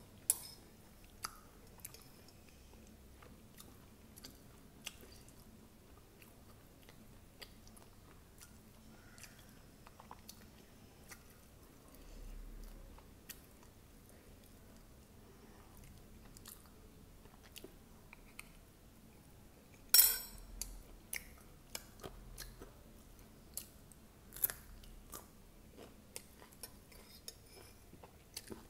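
Close-miked chewing of poha topped with crunchy sev, with many small crunches and mouth clicks, and a metal spoon scraping and clinking on a ceramic plate. The loudest sound is a sharp click about two-thirds of the way in.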